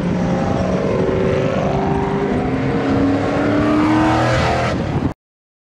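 Car engine accelerating, its pitch rising steadily under the engine noise, then cutting off suddenly about five seconds in.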